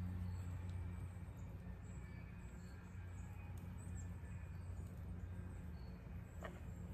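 Quiet outdoor ambience: a steady low hum with a few faint, short high chirps scattered through it.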